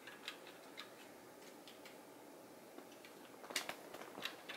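LEGO plastic parts clicking as the assembled Voltron robot is handled and pressed together: a few faint ticks at first, then a quicker run of louder clacks near the end.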